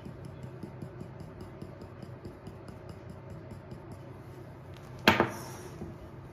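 Quiet kitchen room tone, then, about five seconds in, one sharp clink of kitchenware with a short ring.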